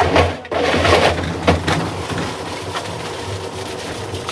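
Samsung washing machine running with heavy bricks in the drum: several heavy knocks and clattering in the first second and a half, then a steady hum of the motor and turning drum.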